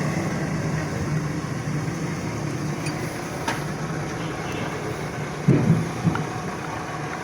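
Steady low engine hum, with a few light clicks and a short knock about five and a half seconds in, another faint one just after.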